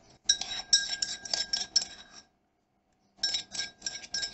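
Quick runs of ringing clinks and knocks of ceramic bowls against a steel cooking pot, about five knocks a second, in two bursts with a pause of about a second between.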